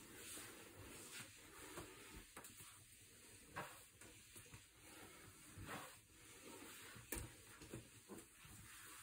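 Near silence: a dry microfiber cloth wiped faintly across a quartz countertop, with a few soft knocks.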